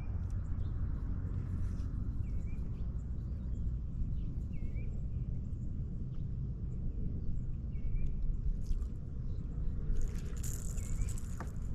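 Short bird chirps, each a quick curved note, repeating every second or two over a steady low rumble. A brief hiss cuts in about ten seconds in.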